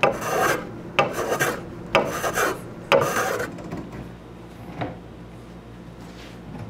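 Block plane with a 25-degree bevel on its iron taking short trimming strokes on a walnut table frame, planing the leg tops flush with the aprons. There are four strokes, about a second apart, in the first half.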